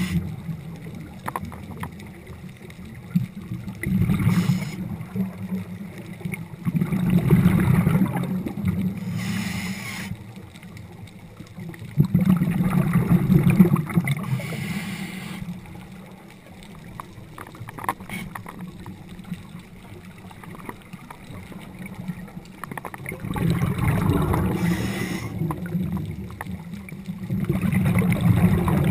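Scuba regulator breathing underwater: low rumbling gushes of exhaled bubbles a few seconds apart, with a short hiss of inhaled air between some of them and a quieter stretch in the middle.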